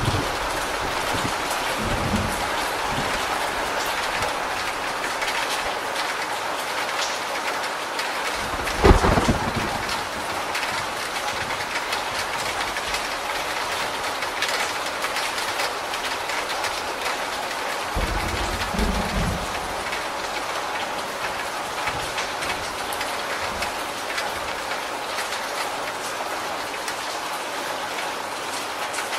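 Steady rain falling on a corrugated roof and streaming off its edge. Thunder rumbles low three times: briefly about two seconds in, with a sharper, louder clap about nine seconds in, and again about eighteen seconds in.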